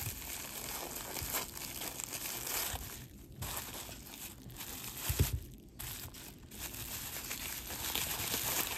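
Crinkling and rustling of wrapping as jewelry is unpacked and handled, with one soft knock about five seconds in.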